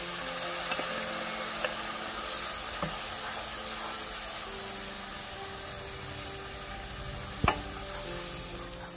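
Spiced masala for a paneer curry sizzling and frying in a pan while being stirred, with a few sharp clicks from the stirring, the loudest about seven and a half seconds in.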